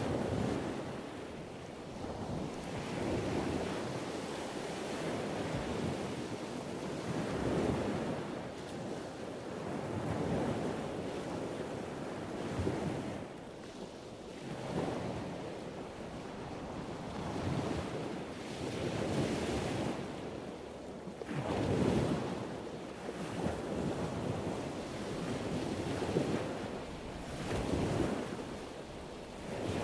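Rough sea surf breaking and washing, swelling and easing in irregular surges a few seconds apart, with wind buffeting the microphone.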